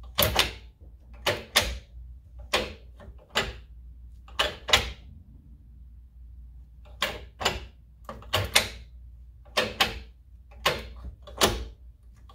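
A Saab's manual gearbox shift linkage clunking as it is run through the gears, with sharp knocks mostly in pairs and a short pause midway. The run-through is a check of how much play is in the shifter cables and linkage before new shifter base bushings and a reinforcement clamp go in.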